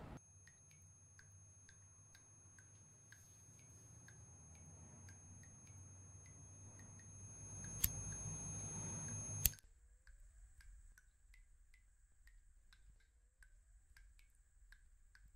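Quiet sound-design track: steady ticking, about two to three ticks a second, over a thin high whine and a low drone that slowly swells. It is broken by two sharp clicks, a disposable lighter's flint wheel being struck. After the second strike the drone cuts off and the faint ticking carries on.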